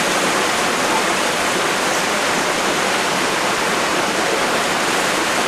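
Steady rush of flowing water, an even hiss that does not let up.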